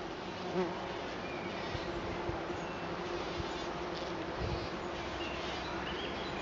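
Flying insect buzzing steadily, with a few faint bird chirps now and then.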